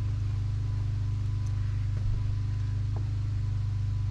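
An engine running steadily at a constant speed, giving a low, even drone, with a faint knock about two seconds in and another about three seconds in.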